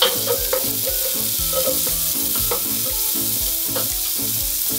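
Red onion, frozen corn and ginger sizzling on high heat in a frying pan while a wooden spoon stirs them, with a steady hiss and short scrapes and taps of the spoon against the pan.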